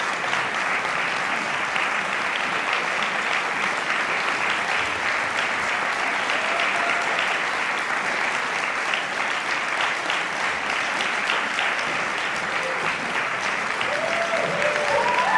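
Audience applauding steadily with dense clapping. Near the end, a few voices call out over it.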